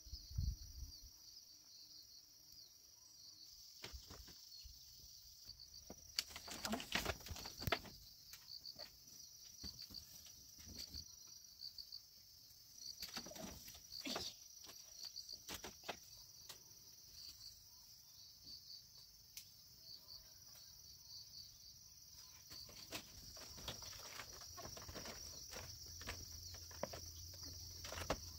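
Insects chirring steadily in a high, rapidly pulsing trill, with scattered soft knocks and rustles of handling, the loudest clusters about a quarter and half of the way through.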